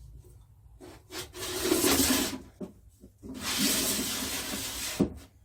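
A panel being slid into the slots of a felt-fulling drum: two long scraping rubs, each about a second, then a short sharp knock near the end.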